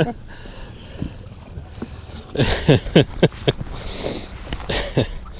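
Wind and choppy lake water around an open boat. About halfway through, a man makes a few short vocal sounds, then a brief hiss of water follows.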